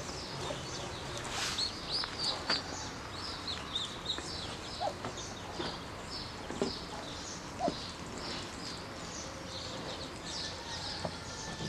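Muscovy ducklings peeping, a continual run of short high-pitched chirps, with a few brief lower calls from adult fowl among them.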